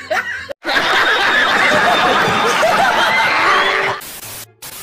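Laugh-track sound effect of a crowd laughing and snickering, starting right after a brief silent cut. About four seconds in it gives way to a TV-static hiss with a low hum, which drops out for a moment; this is a glitch transition effect.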